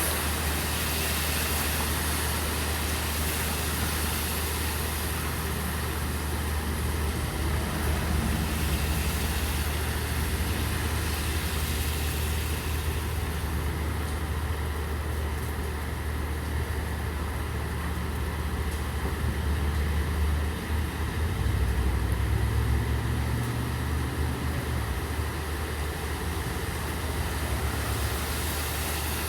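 Steady rain hiss over the constant low rumble of a vehicle engine running. The rumble swells louder for a few seconds about three quarters of the way through.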